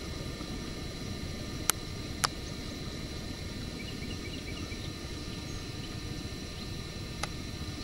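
Steady low rumble of a vehicle driving, with a faint high whine and three sharp clicks, two close together about two seconds in and one near the end.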